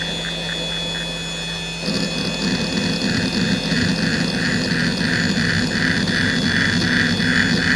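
Hitachi DK32CJ-36MC 10,000 RPM SCSI hard drive running hdmotion: the spindle hums and whines steadily while the head actuator seeks back and forth in a rhythmic pattern. About two seconds in, the seek noise gets louder and rougher and settles into a slower pulse of about two to three sweeps a second. The spindle bearings are audibly worn, though the drive is in full health.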